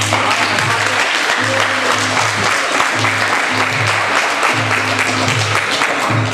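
Audience applauding loudly, starting sharply and fading near the end, over background music with a repeating low note pattern.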